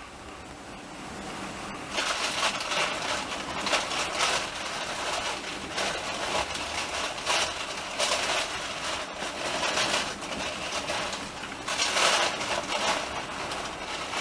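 Moving train heard from a carriage window: a steady rushing noise of wheels on rails and passing air that turns abruptly louder about two seconds in, with irregular knocks through it.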